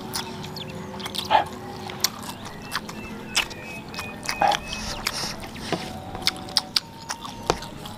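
Close-up eating noises of someone chewing a mouthful of spicy tofu balado and rice, with wet chewing and lip smacking and many irregular sharp clicks.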